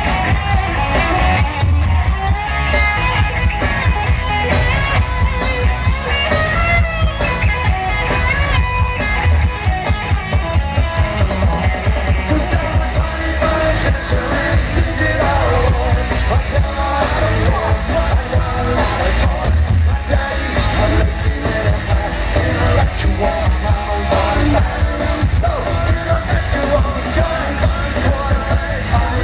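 Live punk rock band playing at full volume: distorted electric guitars, bass and drums with a singing voice over them, heard from within the audience.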